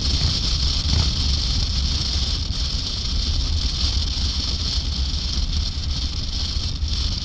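Motorcycle engine running steadily with a low rumble, under a constant high hiss.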